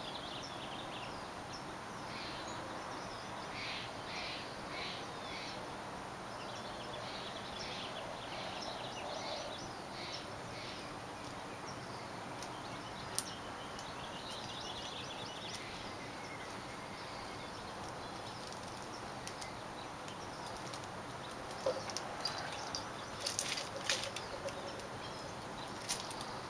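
Outdoor ambience with wild birds chirping on and off. In the last few seconds comes a run of sharp clicks and scratches as the cat grips and shifts on the bark of the tree trunk.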